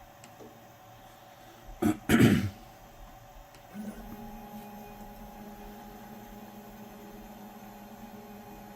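A person clears their throat about two seconds in. About four seconds in, a steady electrical hum with a low tone sets in and holds.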